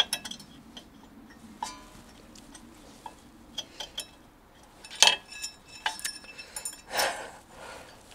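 Light metallic clicks and clinks, some briefly ringing, as a Brembo brake pad's steel backing plate and spring clip are pushed and worked into a Mazda MX-5's caliper bracket. The clinks bunch together about five seconds in, and a short scrape comes near seven seconds.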